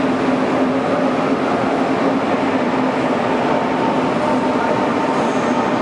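Heavy rain falling on the arched glass roof of a station platform hall: a loud, steady hiss, with a low steady hum underneath.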